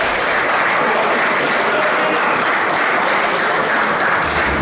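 Spectators clapping steadily at a table tennis match, applause for a point just won.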